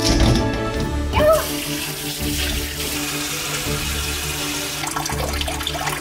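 Kitchen faucet water running steadily into a stainless steel bowl in the sink while small octopus are rinsed and squeezed by hand, over background music. A brief high-pitched sound about a second in.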